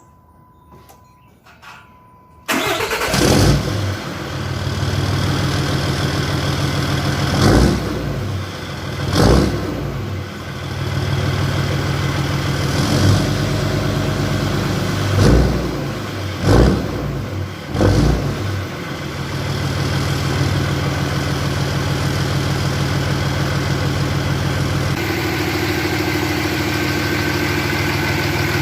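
6.7 Cummins turbo-diesel straight-six engine running after a fuel filter housing change, coming in suddenly about two and a half seconds in and then idling steadily, with about seven brief louder surges in the first two-thirds.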